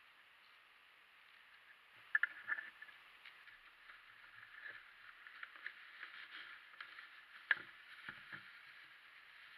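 Clear plastic zip-lock bags crinkling and rustling as they are handled, with a few sharper crackles, the loudest about three-quarters of the way through.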